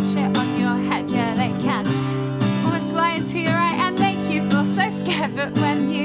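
A woman singing, accompanying herself on a strummed acoustic guitar; her voice wavers with vibrato over steady held chords.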